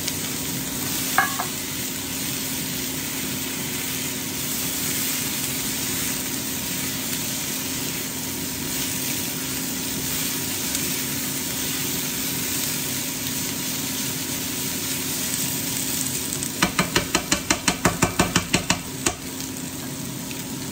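Chicken pieces, sliced bell peppers and red onion sizzling in a hot frying pan as they are stirred and turned with tongs, over the steady hum of an air fryer. Near the end comes a quick run of about a dozen sharp clicks.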